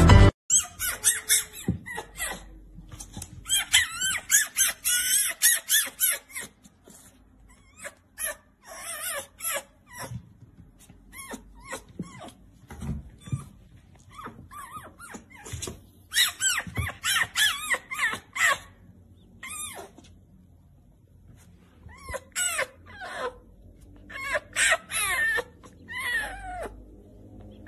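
Fennec fox making rapid, high-pitched squeaky chirps and whines in bursts of a few seconds, with the pitch wobbling up and down, separated by short quiet gaps.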